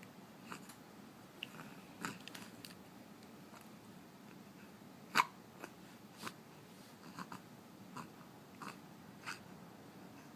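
Faint, scattered short clicks and small catches of breath from a baby hiccuping and knocking the toys on his bouncy seat, about a dozen in all, the clearest about five seconds in.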